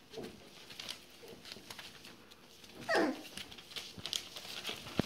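Border collie puppies about four weeks old whimpering. About three seconds in, one puppy gives a short, high cry that slides sharply down in pitch; fainter little whimpers come earlier. Light rustling and scratching of paws on newspaper runs underneath.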